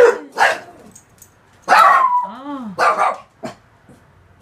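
Dogs barking during rough play: a quick series of short, sharp barks, with a brief whine that rises and falls in pitch about halfway through.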